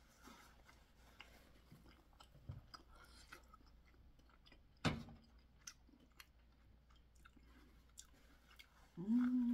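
Faint, close-miked chewing with small wet mouth clicks. One sharp knock about five seconds in, and a short hummed voice sound near the end.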